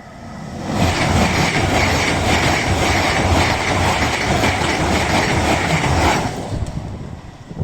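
A high-speed passenger train passing close by at speed, with rapid clatter of wheels over the rails. The sound builds quickly about half a second in, stays loud for about five seconds, then falls away.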